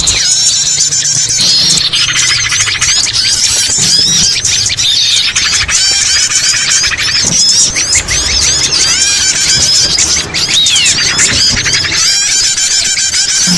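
Dense, loud chorus of small songbirds calling over one another: many short high chirps and twitters, with rapid buzzy trills about two seconds in and again near the end, and one arched whistle past the middle. It is a bird-trapping lure call (pikat) made to draw in small birds.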